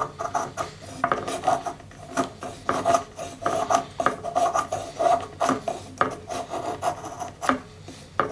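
A knife blade shaving thin curls off a dry pine stick, in repeated short rasping strokes of about two a second.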